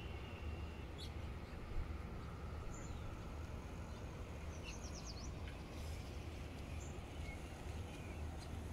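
Faint songbird chirps, scattered single notes and a quick run of several notes in the middle, over a steady low outdoor background rumble.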